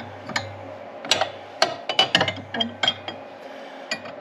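A socket ratchet clicking, with sharp metal clicks and clanks coming in irregular clusters, as the Yamaha G2 golf cart engine is turned over by hand to move the valves for setting valve lash.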